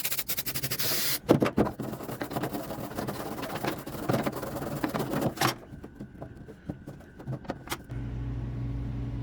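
A can of aerosol brake cleaner sprays in a short hiss for about a second, then a nylon brush scrubs rapidly at the crusty, corroded tailgate latch clips. The scrubbing thins out to a few light scrapes and clicks, and a steady low hum starts near the end.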